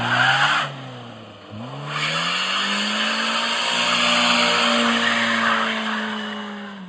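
Lada Samara hatchback doing a wheelspin launch: the engine is revved hard and the front tyres squeal on the asphalt. The revs drop briefly about a second and a half in, then climb and hold again with a longer squeal, and the sound fades near the end as the car pulls away.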